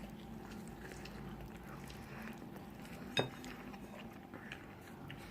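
A person eating fried chicken and chips from a plate: faint chewing and handling of food with small clicks, and one sharp clink about three seconds in.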